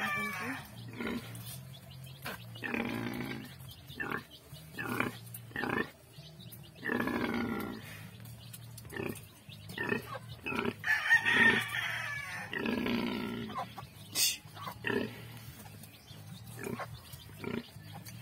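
Nursing sow grunting in a repeated series of short grunts about a second apart while her piglets suckle. Piglets squeal now and then, loudest in a stretch a little past the middle.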